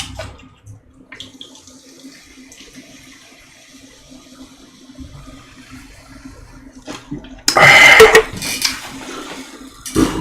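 Cola fizzing faintly, then a loud, noisy liquid sound lasting about a second, starting about seven and a half seconds in, with a shorter one near the end.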